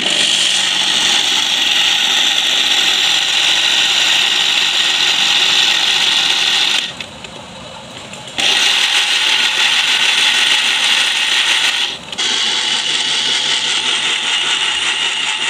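Electric juicer-blender motor running at high speed, whipping eggs, sugar and vanilla essence into a smooth liquid so the sugar grains dissolve. It stops for about a second and a half partway through, then runs again, with a very short break near the end.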